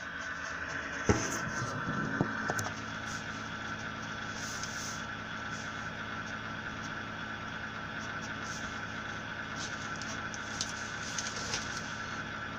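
Ig-Max 1607 500W computer power supply running: a steady hum with a constant high whine. A sharp click about a second in, then a few light knocks shortly after.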